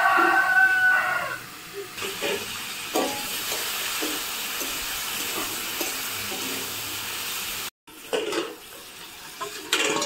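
Cut potatoes sizzling in hot oil in an iron karahi, with a metal spatula scraping and stirring them in repeated strokes. A rooster crows briefly at the start, the loudest sound, and the audio cuts out for a moment near the end.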